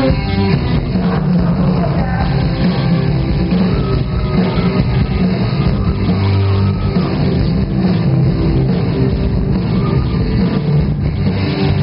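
Live rock band playing loud with electric guitars, heard from within the audience.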